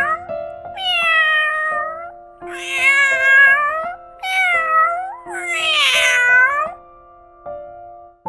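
Domestic cat meowing, about four long drawn-out meows one after another, over background music.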